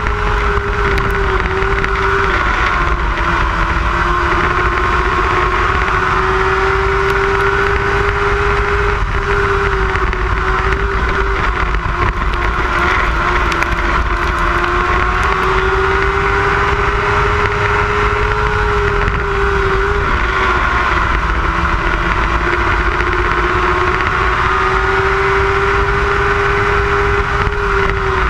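Lightning sprint race car engine running at high revs while lapping the track. Its pitch holds steady, then dips briefly and climbs back about every eight seconds.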